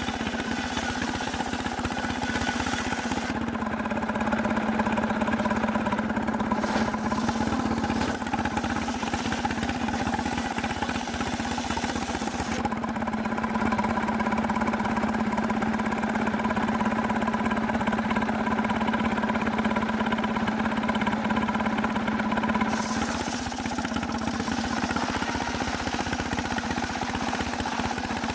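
Sawmill's small engine running steadily at a constant speed. A high hiss over it drops away twice for several seconds and comes back.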